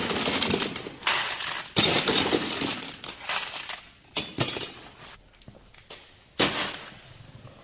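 Walnuts in the shell clattering against a metal scoop and against each other as they are scooped and poured into a mesh bag, with a few sharp knocks. A little after six seconds in, the full bag of walnuts is set down on the scale's metal tray with a loud rattle.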